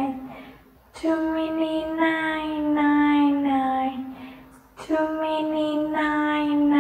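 A child singing in long held notes: two sung phrases, each sliding down in pitch at its end, with a short breath break about a second in and another near the five-second mark.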